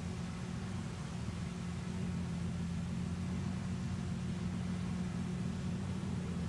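Sports car engine idling steadily: a constant low hum that holds at one pitch, with no revving.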